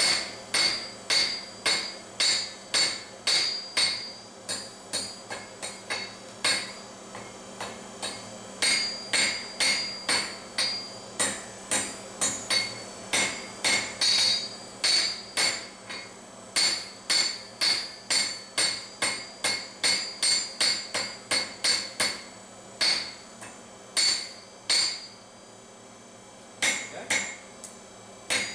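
A hand hammer striking hot steel on an anvil to forge out a pruning knife blade. The blows come in runs of about two to three a second, each with a metallic ring, and break off for short pauses, the longest near the end.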